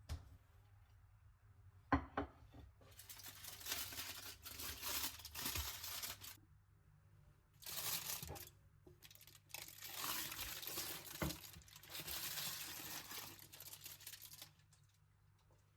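The wrapping of a fish en papillote being crinkled and torn open in three long rustling stretches, with a single knock about two seconds in.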